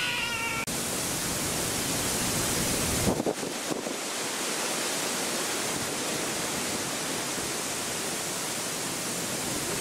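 Steady hiss of rain and wind, with a few sharp knocks about three seconds in.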